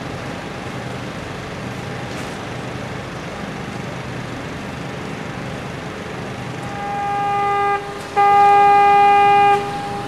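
Warning horn sounding two steady blasts before a chimney demolition blast: the first swells up for about a second, the second is louder and lasts about a second and a half. A steady low hum runs underneath.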